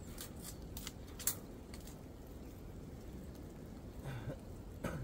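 Faint clicks and scrapes of a wire snare and a machete being handled while freeing a trapped fox, with a sharp click about a second in. Two short, low sounds come near the end.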